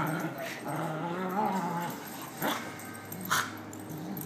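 Puppies play-fighting: a wavering growl through the first two seconds, then two short, sharp yips about two and a half and three and a half seconds in.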